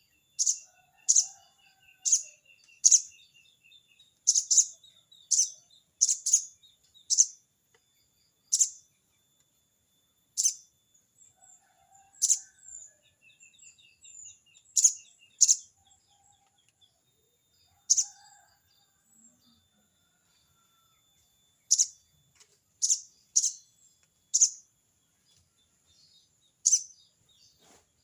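Sogon bird giving its 'crecet' call: sharp, high chip notes at irregular intervals, often in quick pairs or runs, with faint chattering trills between them. It is the call used to challenge a rival.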